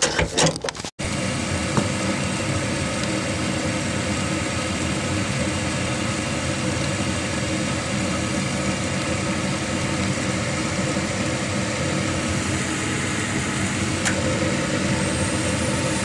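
Gas furnace's draft inducer motor running with a steady hum while the hot-surface igniter glows before the burners light, the normal start-up sequence after the gas valve was replaced.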